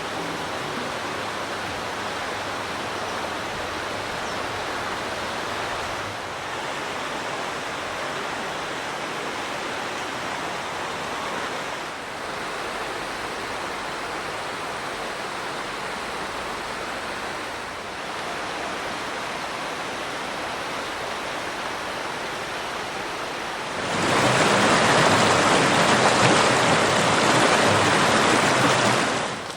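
Steady rushing outdoor noise, like water or wind, with no distinct events. It grows louder and brighter for the last five seconds.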